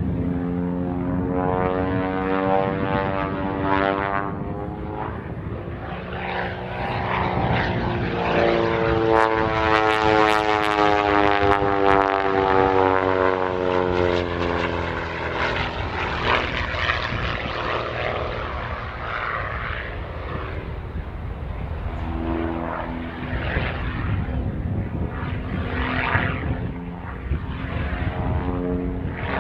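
Pitts Special aerobatic biplane's piston engine and propeller droning through aerobatic manoeuvres, the pitch rising and falling as power and distance change. It is loudest about a third of the way in, where the pitch falls in a long glide, and it swells again near the end.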